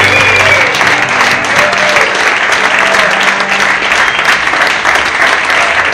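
Audience applauding, dense clapping throughout, as the band's last sustained chord stops about half a second in.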